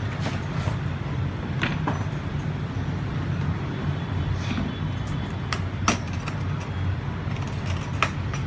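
Hard plastic power-tool carry case being handled, turned over and set down flat on a bench, giving a few sharp clicks and knocks, two close together about two seconds in, then one near six seconds and one near eight seconds. A steady low rumble underlies it all.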